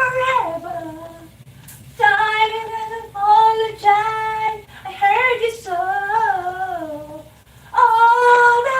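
A high voice singing long held notes in about four phrases with short breaks, the words not clear.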